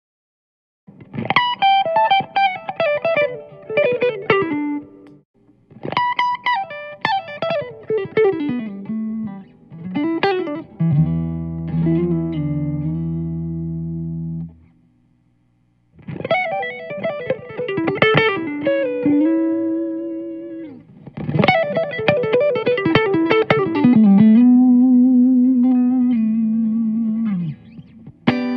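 Fender American Stratocaster electric guitar played through a Royal Plush photocell compressor pedal into a Fuchs Clean Machine amp. It plays quick single-note runs falling in pitch, then a chord held for several seconds. After a brief pause come more runs, ending on a long sustained note.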